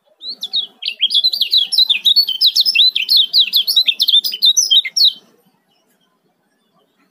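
Male kecial kuning, a yellow white-eye, singing a fast, tightly packed run of high 'ciak' chirps for about five seconds, then stopping. This is the rapid-fire 'speed rapat' song used as bait to get other kecial kuning singing.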